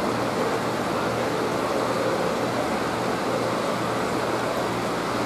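Steady rushing noise with a faint low hum underneath, unchanging throughout.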